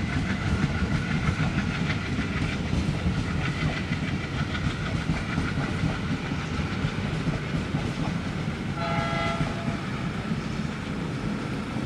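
Passenger train coaches rolling past, wheels clattering over the rail joints over a steady low rumble. A short multi-tone horn blast sounds once, about nine seconds in.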